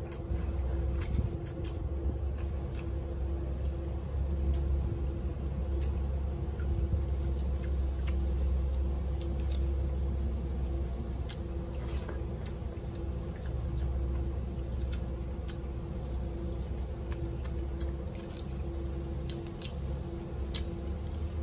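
A person chewing and eating close to the microphone, with wet squishing mouth sounds and many short scattered clicks, over a steady low hum.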